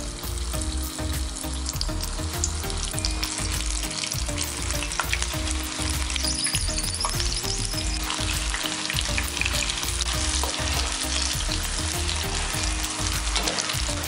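Lumps of sweet corn fritter batter deep-frying in hot oil in a pan, sizzling steadily with many small pops.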